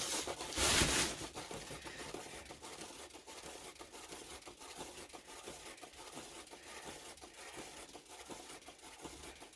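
A hand-spun turntable carrying a freshly poured painted tile is set spinning with a quick push, then runs on with a dense, crackly rattle that slowly fades as it slows down.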